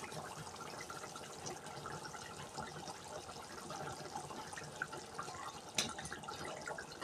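Chicken curry simmering in an aluminium pot on a gas stove, the sauce bubbling and popping faintly. A single brief click comes about six seconds in.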